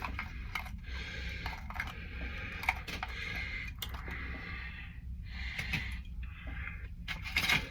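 Scattered light clicks and taps of kitchen handling, with bowl and food being moved about, over a steady low hum.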